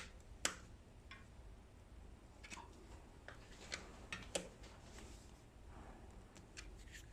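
Scattered, irregular light clicks and taps of small metal parts being handled: stainless steel screws and washers being fitted to a bike's brake caliper. The sharpest click comes about half a second in and another near the middle.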